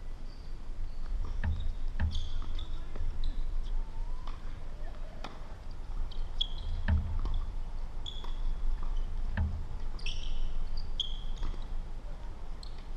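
Tennis ball being played on a court: a handful of sharp racket strikes and ball bounces, spaced a second or more apart, over a steady background hiss.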